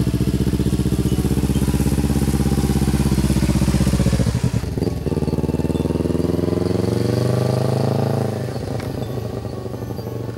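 Sport motorcycle engine running with a fast throbbing beat, then pulling away about halfway through. Its pitch climbs as it accelerates and drops sharply near the end at a gear change, growing quieter as it rides off.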